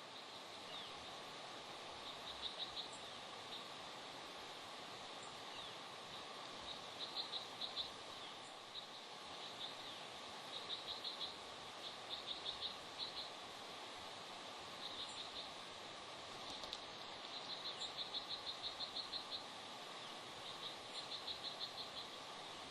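Bald eagles calling at the nest: repeated bouts of rapid, high-pitched chittering, each a quick run of chirps, one longer run of about a dozen near the end, over a steady hiss.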